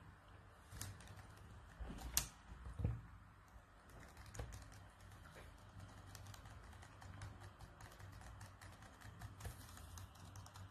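Faint typing on a laptop keyboard: quick, irregular key clicks, with a few louder knocks in the first three seconds.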